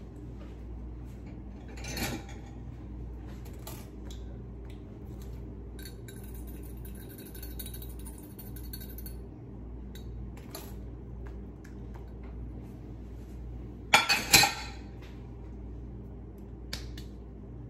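Stainless steel mini whisk rattling fast against the inside of a glass measuring cup for about three seconds, an even metallic ticking. A knock comes about two seconds in, and a quick run of three loud knocks, the loudest sounds, comes near the end, over a steady low hum.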